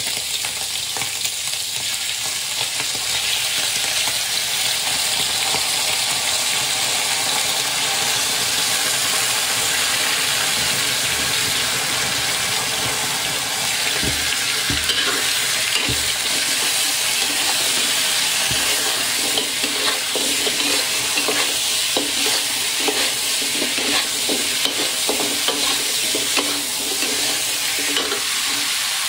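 Pork rib pieces sizzling in hot oil in a wok while braising sauce paste is added and the ribs are stirred. A spatula scrapes and knocks against the wok, more often from about halfway through.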